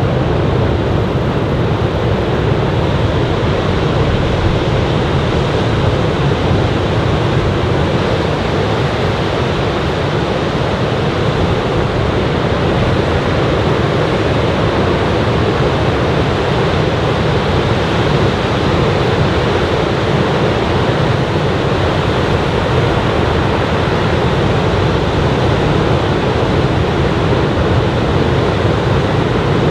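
Heavy ocean surf from a typhoon swell breaking on a sand beach: a loud, steady wash of wave noise with no let-up.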